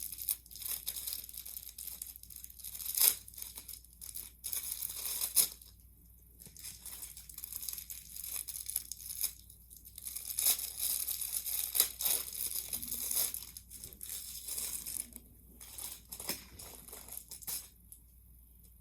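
Packaging crinkling and tearing as fidget toys are unwrapped by hand, in irregular handling bursts with a few sharper snaps, stopping near the end.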